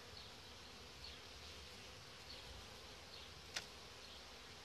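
Faint, steady hum of a honeybee colony buzzing over the open frames of a hive, with a single sharp click about three and a half seconds in.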